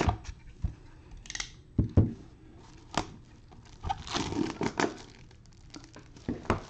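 Plastic shrink-wrap being torn and peeled off a cardboard trading-card hobby box, crinkling, with a few sharp knocks and taps as the box is handled.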